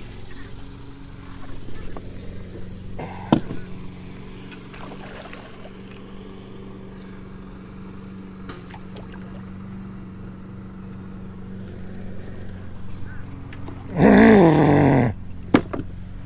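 Steady low hum of an electric trolling motor, with a sharp click about three seconds in. About fourteen seconds in comes a loud, falling yell from a man, about a second long.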